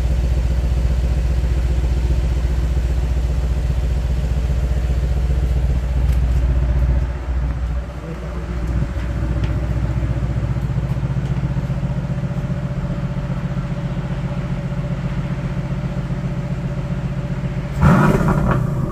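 Mercedes-AMG GLC 63 S's 4.0-litre twin-turbo V8 on its stock exhaust idling with a steady low burble, then a sharp throttle blip near the end that climbs and falls back to idle.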